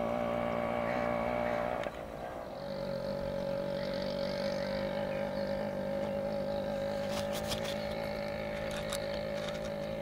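A small engine running steadily at an even pitch; its tone changes abruptly about two seconds in.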